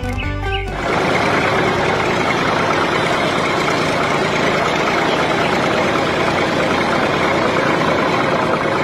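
A motor running steadily with a dense, even mechanical noise, starting about a second in as the music cuts off.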